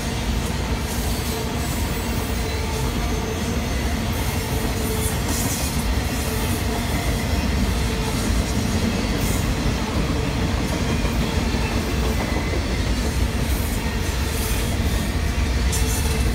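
Freight train of enclosed autorack cars rolling past at speed: a steady rumble of steel wheels on rail, with a faint steady tone running under it.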